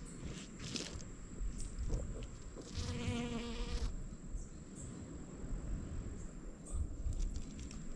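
A bee buzzing in flight close by: a pitched hum lasting about a second, about three seconds in, over a low rumble.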